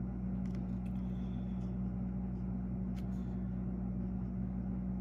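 Steady low hum, with a few faint clicks from paper being handled.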